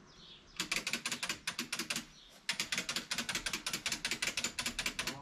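A hand ratchet being worked, clicking rapidly at about eight clicks a second in two long runs with a short break about two seconds in.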